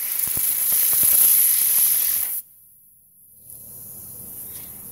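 Compressed air hissing from an air compressor's hose, blown at a spinning fidget spinner; the blast cuts off suddenly about two and a half seconds in.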